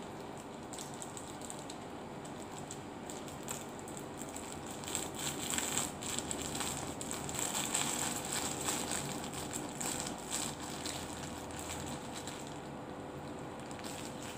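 Thin plastic bag crinkling and crackling as it is squeezed and shaken to empty chicken bistik topping out of it, loudest through the middle of the stretch.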